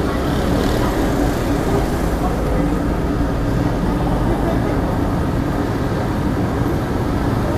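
A steady, loud low roar of mechanical noise with no distinct events.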